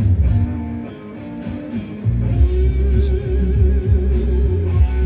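Rock music with electric guitar, bass and drums playing on a radio. It drops back briefly about a second in, then comes back full with a held guitar note wavering in pitch.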